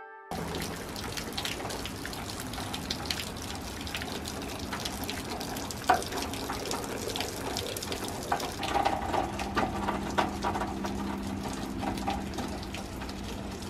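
Rain falling, with steady dripping and running water and many small ticks of drops. There is one sharp tap about six seconds in, and a faint low hum joins from about eight seconds.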